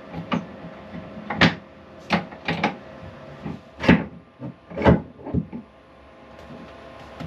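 A series of sharp knocks and clunks, about eight over five seconds, the loudest two near the middle, like hard objects or a locker door being handled.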